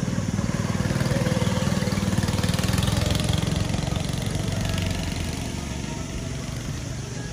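Small go-kart engine running close by with a rapid, even firing beat, loudest a couple of seconds in and then fading as the kart moves off.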